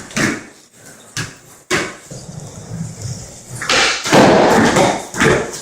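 A series of sudden knocks and thumps, with a longer, louder noisy burst about four seconds in.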